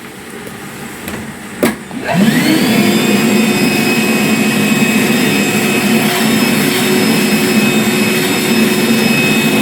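A wet-vacuum suction machine, used to draw standing water out of a broken washing machine through a hose, is switched on with a click. Its motor spins up with a rising whine, then runs loud and steady.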